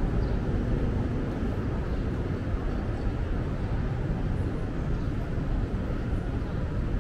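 Steady low rumble of outdoor city ambience, with no distinct events standing out.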